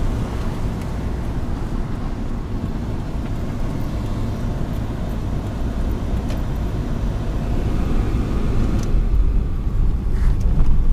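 Steady low road and engine rumble heard from inside a four-wheel-drive vehicle driving on snow- and ice-covered streets, growing a little louder over the last few seconds.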